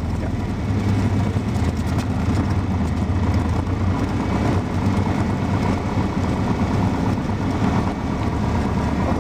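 Cessna 172 single-engine piston aircraft engine running steadily at low power, a low hum that gets a little louder about a second in.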